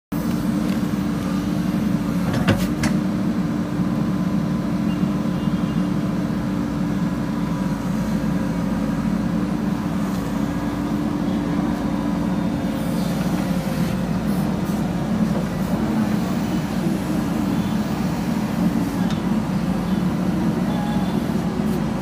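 JCB 3DX backhoe loader's diesel engine running steadily under load as the backhoe arm and bucket work. A couple of sharp metallic knocks come about two and a half seconds in.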